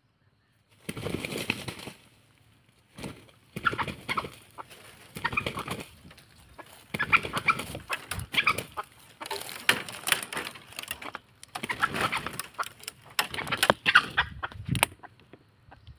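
A wild junglefowl rooster clucking in short irregular bursts, mixed with scuffling and wing-flapping noise in dry leaf litter. It starts about a second in.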